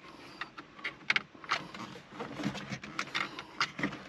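Plastic dash trim panel of a Ford F-150 being handled and seated on the centre stack: irregular clicks, taps and scrapes of hard plastic, the sharpest a couple of clicks about a second in and a cluster around three seconds in.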